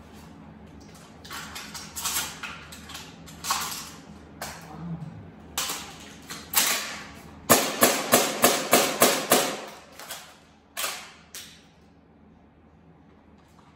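Maruzen live-shell airsoft shotgun being handled: plastic shells and the gun's action clicking and clacking as shells are loaded. Scattered clicks come first, then a quick run of about eight sharp clacks, roughly four a second, and one more a little later.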